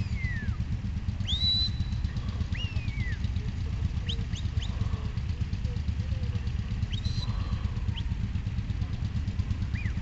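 Shepherd's whistle commands to a working sheepdog: a series of sharp whistles, some rising and then held high, some sliding downward, with a few quick chirps about four seconds in. A steady low rumble runs underneath.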